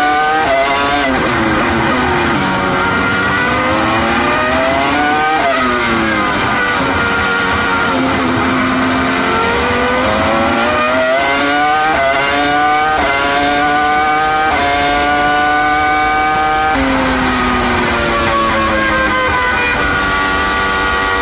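Williams-BMW FW26 Formula One car's 3.0-litre BMW V10, heard onboard at racing speed. The engine note climbs through the gears with quick upshifts that drop the pitch in steps, and falls away under braking and downshifts about five seconds in and again from about seventeen seconds, then picks up once more.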